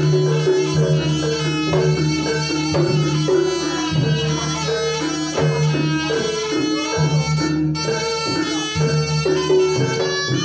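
Live Javanese jaranan ensemble music: a shrill reed trumpet (slompret) plays a stepping melody over a sustained low tone, with drums (kendang) marking the beat.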